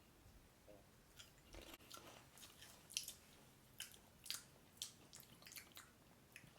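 Faint crunching of Pringles potato chips being chewed, a string of irregular sharp crackles.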